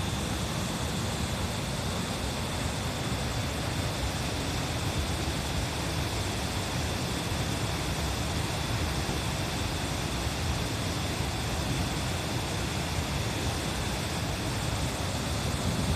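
Steady rushing water of a mountain stream, an even unbroken noise with no distinct events.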